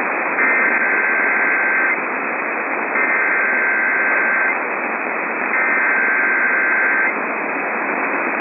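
Emergency Alert System SAME header: three screeching data bursts, each about a second and a half long with about a second between them, sent over a radio receiver's steady static hiss. The bursts are the coded header that opens an emergency alert, here a severe thunderstorm warning.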